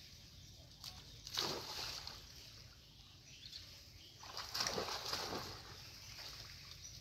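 Leafy tree branches rustling in two bursts of about a second each, the first about a second and a half in and the second around four and a half seconds in.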